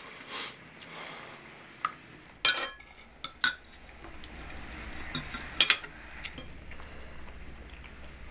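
Cutlery clinking against dinner plates during a meal: a handful of separate clinks and knocks, the loudest about two and a half and five and a half seconds in.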